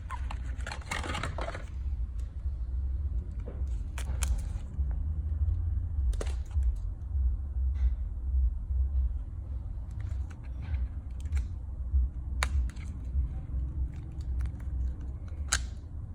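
Handling noises from unboxing a power bank and its packaging: scattered sharp clicks and short scrapes and rustles over a steady low hum.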